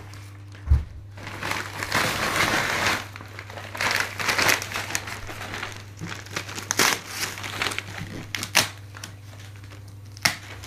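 A large cardboard box thumps down onto the floor about a second in, followed by irregular crinkling and rustling of wrapping paper and packaging as it is handled, with a few sharp crackles.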